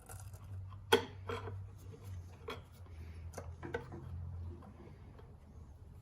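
Scattered light clinks and knocks of metal parts being handled while taking apart an outboard motor's exhaust housing, the sharpest about a second in, over a steady low hum.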